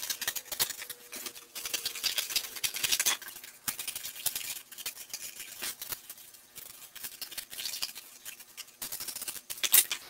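Scissors cutting through cardboard: irregular crisp snips and crackles in several runs, with the cardboard rustling as it is handled between cuts.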